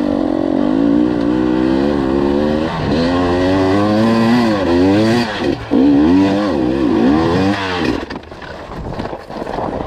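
Two-stroke enduro dirt bike engine revving hard, the throttle worked on and off so the pitch keeps rising and falling, then easing off and dropping back about eight seconds in.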